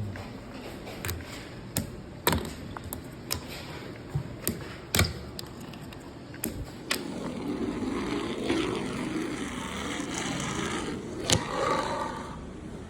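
Fingerboard tricks: a series of sharp clacks from the small deck popping and landing on a hard surface, then its tiny wheels rolling in a steady rumble for several seconds, broken by another sharp clack.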